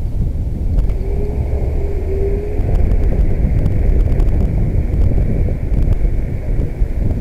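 Wind rushing over a helmet-mounted camera's microphone while cycling, a steady low rumble, mixed with the noise of car traffic close ahead.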